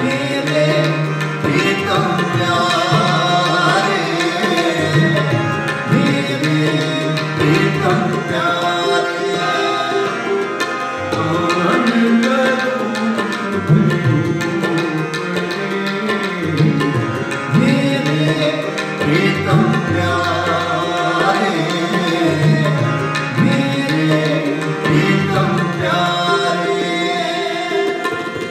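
Sikh kirtan: two harmoniums holding the melody and tabla playing a steady rhythm, with a male voice singing along.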